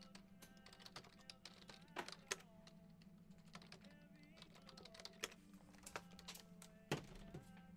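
Faint, scattered clicks of a computer keyboard and mouse over a low steady hum, with the sharpest clicks about two seconds in and again near the end.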